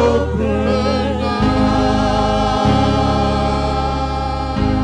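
Gospel choir singing long held notes over electronic keyboard accompaniment. The keyboard's bass chord changes about a second and a half in, again near the middle, and near the end.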